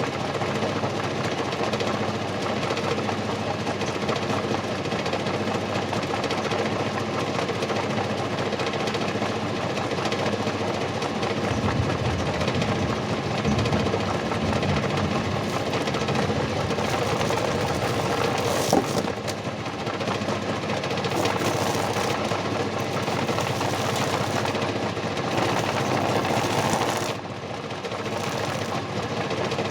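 Washing-machine motor driving a homemade PVC feather-plucker drum, a steady mechanical hum with rattle. It grows heavier and deeper for a few seconds about midway, with a sharp click a little later and a brief drop near the end.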